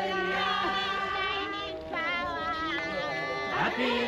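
A crowd of voices singing together, several sustained wavering notes overlapping.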